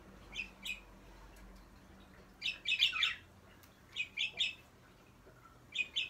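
Budgerigar chirping: short, high chirps in little clusters of two to four, with quiet gaps of a second or so between them.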